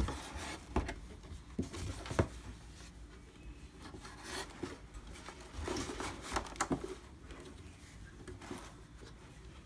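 Hands rustling the soft white wrapping and cardboard packaging while working a speaker out of its box, with scattered light knocks and rubbing.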